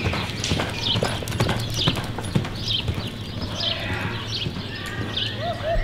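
Hoofbeats of a reining horse running across soft arena dirt, a quick, steady run of hoof strikes.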